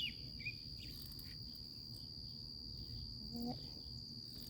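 Crickets chirping in a steady, high-pitched, unbroken drone, with a bird giving a couple of short chirps at the start.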